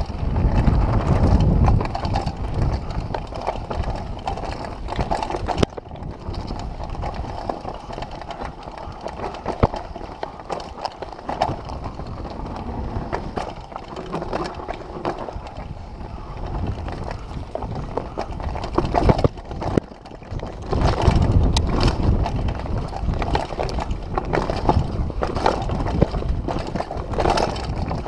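Mountain bike riding fast down a dirt singletrack: tyre noise with the chain and frame rattling and knocking over bumps, and wind buffeting the handlebar camera's microphone, loudest in the first two seconds and again about two-thirds of the way through.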